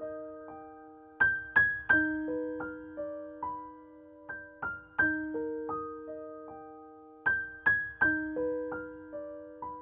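Background music: a slow, gentle piano melody of single struck notes that ring and fade, over a low note sounding about every three seconds.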